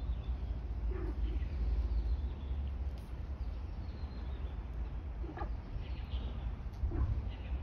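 Low wind rumble on the microphone, with a few faint bird calls and chirps about a second in and again near the end.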